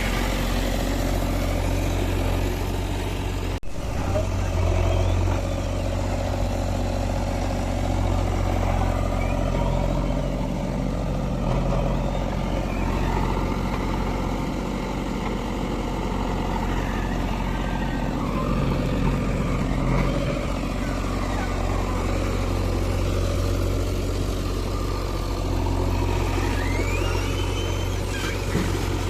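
Diesel engine of a JCB 3DX backhoe loader running steadily while working, its note swelling and easing under load, with a momentary break in the sound about three and a half seconds in.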